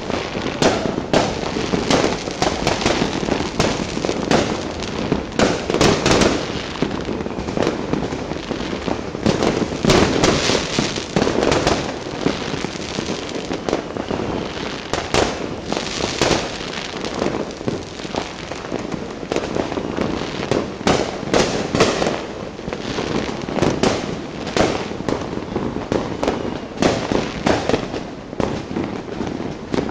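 Many fireworks and firecrackers going off at once: a dense, unbroken barrage of bangs and crackling pops with no pause.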